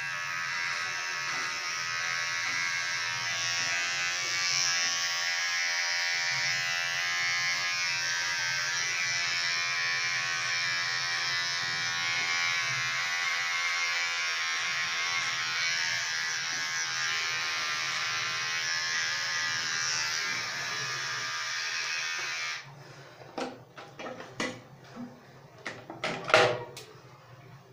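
Handheld electric hair clipper buzzing steadily while it is run over the side of the head, then cutting off suddenly about 22 seconds in. A few short clicks and knocks follow near the end.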